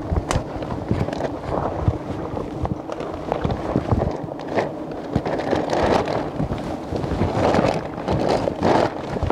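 Close crackling and rustling of plastic protective sheeting rubbing against the microphone, over a steady low hum of buzzing wild honeybees.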